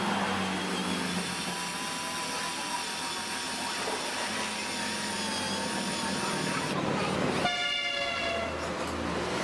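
Cordless drill running steadily with a faint motor whine, its bit working a bolt on a chainsaw engine beside the cylinder fins. About seven and a half seconds in, a pitched tone sounds for about a second.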